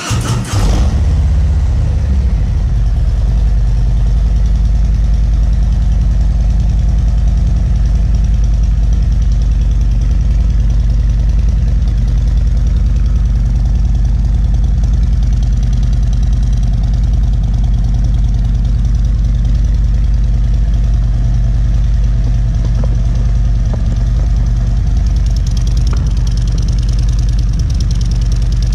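Motorcycle engine idling through freshly fitted Drag Specialties 4-inch black slip-on mufflers, with a deep exhaust note. It has just fired, rises in level about half a second in, then holds a steady idle.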